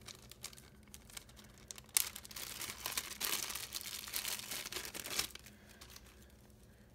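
A small plastic accessory bag being torn open and crinkled by hand: a sharp tear about two seconds in, then about three seconds of crackling plastic that dies away.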